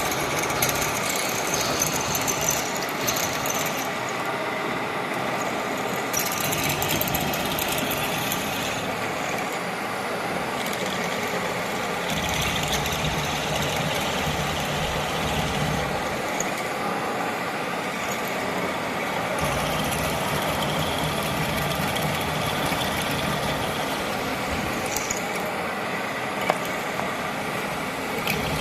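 Radial drilling machine running, a steady mechanical whir whose deep low end strengthens and fades several times.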